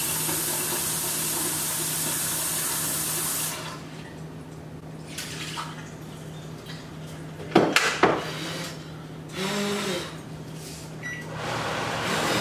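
Kitchen sink tap running for about three and a half seconds, then turned off. A couple of sharp clatters of kitchenware follow about halfway through, over a low steady hum.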